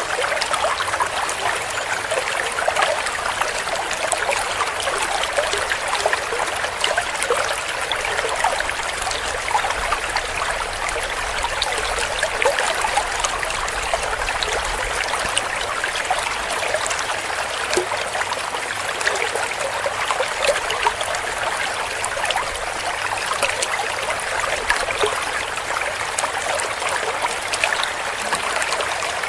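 Small stream babbling and gurgling over stones, a steady rush of water with many tiny splashes.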